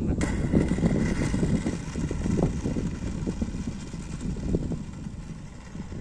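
Strong gusty wind rumbling on the microphone. About a quarter second in, a high hiss with a thin whine starts suddenly and fades over the next couple of seconds: the 64 mm electric ducted fan of a radio-controlled F-15 jet as it rolls along the runway after landing.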